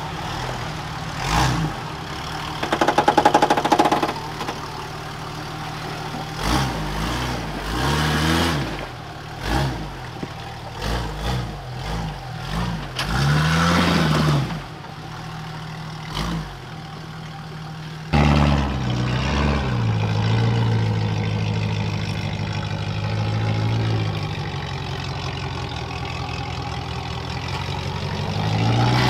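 Off-road 4WD engines revving up and down in short bursts as the trucks crawl over rocks, with sharp knocks from tyres and chassis striking rock. About 18 seconds in the sound changes abruptly to a steadier engine note that rises and dips slowly.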